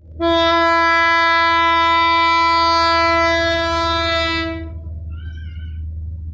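Horn of a CC 202 diesel-electric locomotive sounding one long, steady blast of about four and a half seconds, then dying away, over the low rumble of the running locomotive.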